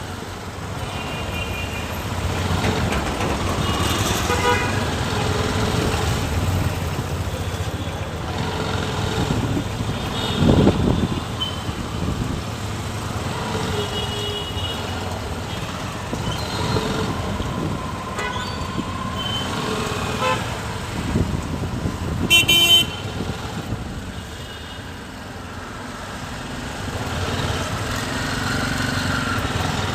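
Street traffic: a steady rumble of vehicle engines and tyres with short car horn toots sounding every few seconds, the loudest horn burst about two-thirds of the way through.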